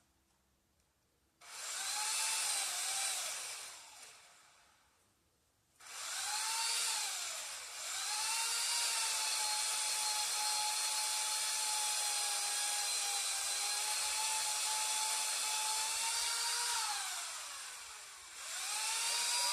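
Small electric power-tool motor, likely a cordless cutting tool used for trimming, running in three bursts: a short run, a long steady run of about ten seconds, then a restart near the end. Its high whine rises in pitch as the trigger is pulled and falls as it spins down.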